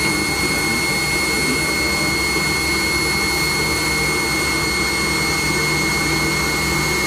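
Cabin noise of a McDonnell Douglas MD-90 taxiing: its rear-mounted IAE V2500 turbofan engines running steadily, a low rumble under a constant high whine.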